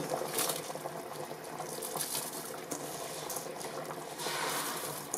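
Spiced mutton gravy bubbling at a boil in an open aluminium pressure cooker. About four seconds in, soaked rice with its dripping water starts pouring into the boiling liquid.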